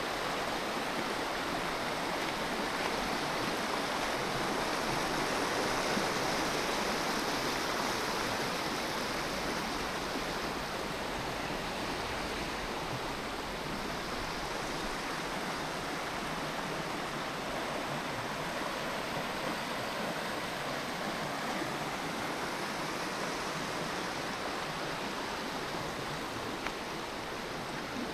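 Steady rushing of running water, even throughout, with no distinct knocks or crackles.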